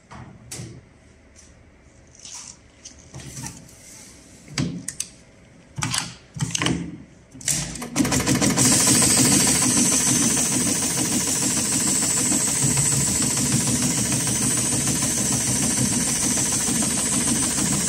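A few sharp clicks and clacks as the strap jig is set in place, then, about eight seconds in, the HighTex 7273CNC-5020 heavy-duty automatic sewing machine starts stitching the ratchet tie-down straps and runs steadily and loudly with a strong hiss.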